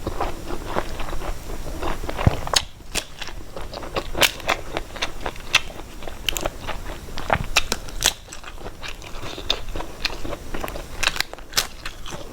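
Close-up sounds of a person eating: irregular crunchy bites and chewing, with many small sharp clicks.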